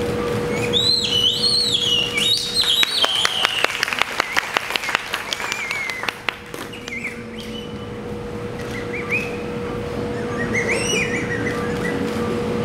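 High, bird-like whistled chirps that swoop up and down in short phrases, with a quick run of sharp clicks for a few seconds in the middle and a steady hum underneath.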